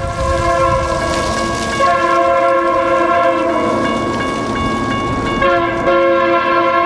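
A BNSF diesel locomotive's multi-chime air horn sounding long blasts as a chord of steady tones, with short breaks about two seconds in and about five and a half seconds in: the horn signal of a train approaching a grade crossing.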